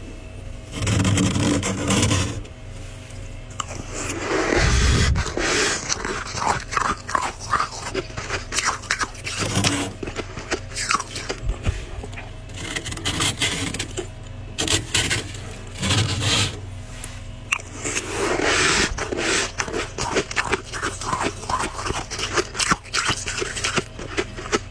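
Pink plastic spoon scraping through thick, powdery freezer frost, repeated short crunchy scrapes at an uneven pace.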